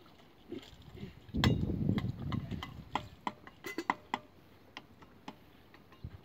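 Building work: an irregular scatter of sharp knocks and clacks, with a heavier clatter about a second and a half in, from wooden poles and battens being handled on a brick house roof. The knocks thin out after about five seconds.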